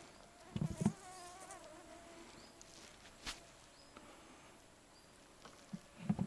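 A flying insect buzzing close by, a steady thin whine that wavers a little in pitch. A few soft low thumps come about half a second in and again near the end.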